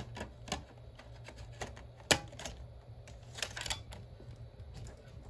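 Scattered plastic clicks and taps from handling a Toshiba Satellite P25 laptop, with one louder click about two seconds in, over a low steady hum.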